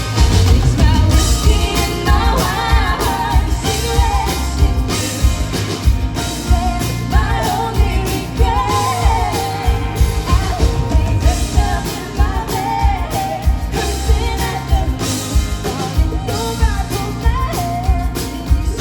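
Rock band playing live, with a lead singer over drums and guitar and a steady beat throughout.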